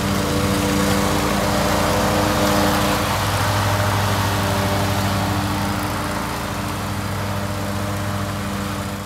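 Ferris stand-on zero-turn lawn mower running steadily while mowing, its engine hum under the noise of the blades. It passes close by and then moves off, growing slightly quieter over the last few seconds.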